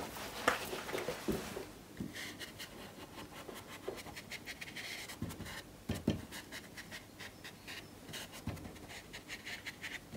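Damp flat brush rubbing over watercolour paper in many short scratchy strokes, lifting paint out of wet clouds, with a couple of soft low knocks about six and eight and a half seconds in.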